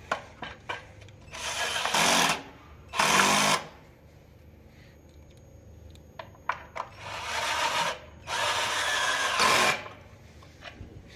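Cordless 12 V drill/driver spinning in four short bursts, two near the start and two past the middle, driving in the bolts of a scooter's front fender and brake caliper, with a few sharp clicks between runs.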